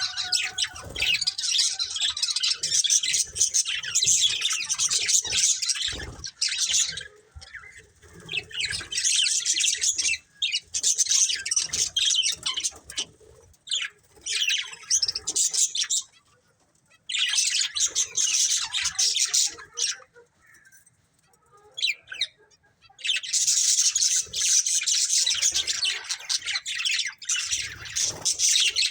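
Budgerigars chirping and chattering in rapid high-pitched bouts, with two short pauses in the second half.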